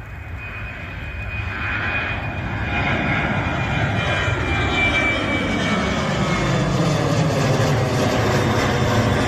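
Boeing 737-800's twin CFM56-7B turbofans at departure power, growing louder over the first few seconds and then holding at a steady loud rumble. A high whine runs above the rumble, and the tone sweeps slowly downward as the jet passes.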